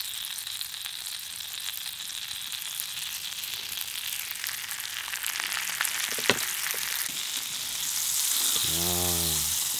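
A slab of butter sizzling as it melts and foams in a hot cast-iron skillet, the sizzle growing louder near the end. A single sharp click about six seconds in.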